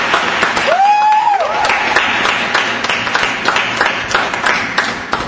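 Arena audience applauding, many hands clapping at once, with one rising-and-falling cheer about a second in; the applause eases off near the end.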